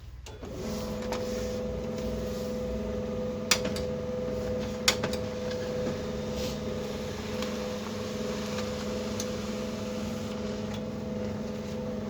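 Canon LBP 2900 laser printer running through a print: a steady motor hum that starts about half a second in and stops near the end, with two sharp clicks around the third and fifth seconds.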